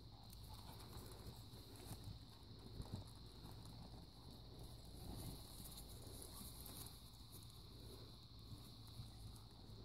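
Faint, soft thuds of a horse's hooves walking on grass, over a steady, even high-pitched chirring of crickets.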